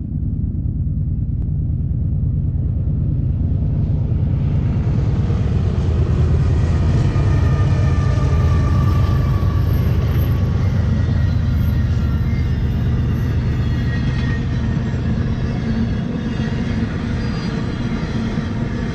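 BNSF GE C44-9W diesel-electric locomotive approaching and passing with a heavy low rumble, followed by an intermodal train of truck trailers on flatcars rolling by. The wheels and rails add clatter and some faint high squealing.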